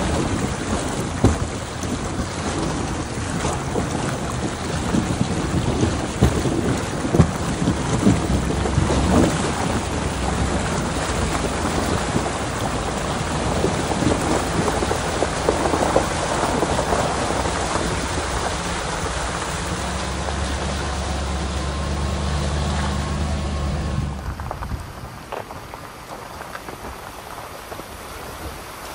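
A truck's tyre churning through a shallow creek crossing, water spraying and splashing against the wheel well, with the engine's low drone showing under it after the middle. About four-fifths of the way through it cuts to a quieter, steady rush of flowing creek water.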